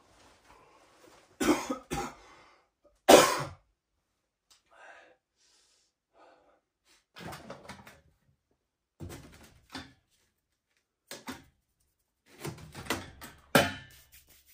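A man coughing and clearing his throat in several short bouts; the loudest coughs come about two and three seconds in.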